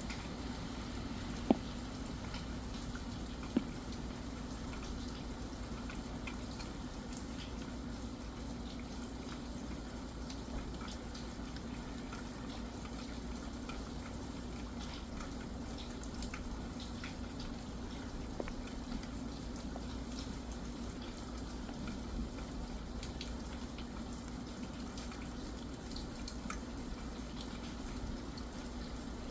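Steady rain with scattered drops pattering, and two sharp ticks about a second and a half and three and a half seconds in.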